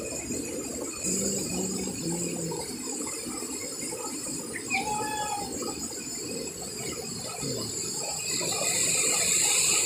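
Stream water rushing steadily down a rock chute, with a swimmer sliding through the white water; the rush grows louder near the end.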